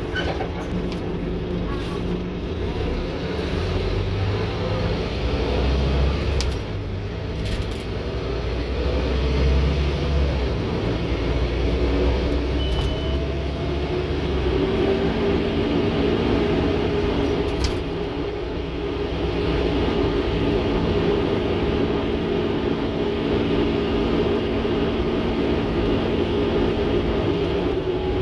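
Scania N230UD OmniCity bus heard from inside the saloon while under way: its nine-litre five-cylinder diesel drives with a deep drone for the first half. About halfway through, a steady whine comes in and holds most of the rest of the way.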